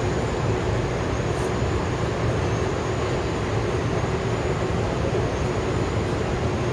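Steady low rumble of background noise in a large indoor arena, even throughout.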